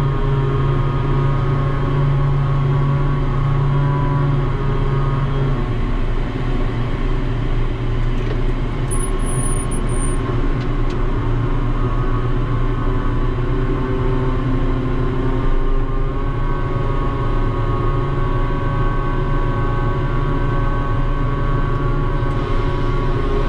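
Ship's deck crane machinery running steadily: a continuous hum with several level whining tones that shift slightly about six seconds in and again around sixteen seconds.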